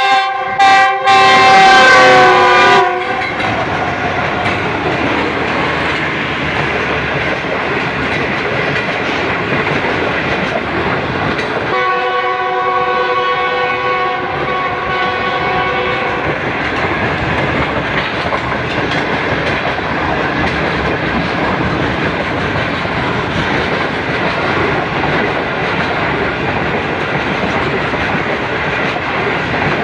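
A diesel locomotive's multi-tone horn sounds loudly, with two short breaks, then again in one long blast about twelve seconds in. Between and after the blasts, the passenger coaches make a steady rolling noise as they pass close by along the platform.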